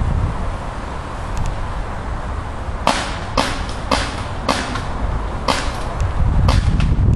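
Paintball markers firing: about eight sharp, short pops at an uneven pace of roughly two a second, starting about three seconds in, over a low rumble of wind on the microphone.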